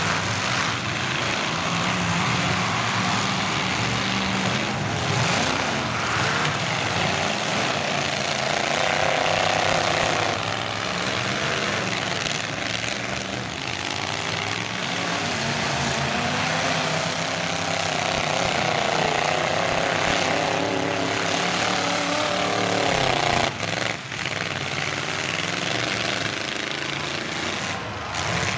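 Several pickup truck engines in a demolition derby revving hard together, their pitch rising and falling, with a few sharp crashes of trucks hitting each other near the end.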